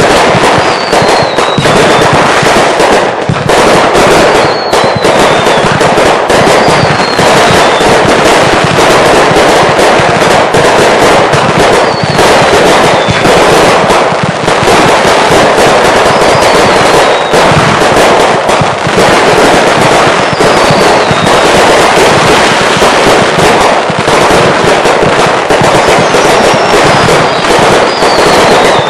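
Consumer fireworks going off in a dense finale barrage: a continuous rapid run of bangs and crackles, with short falling whistles every second or two.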